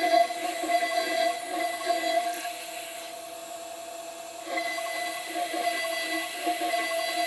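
CNC 6040 router spindle whining steadily while a small end mill cuts aluminium plate. The cutting noise drops for about two seconds midway, then picks up again as the cut resumes.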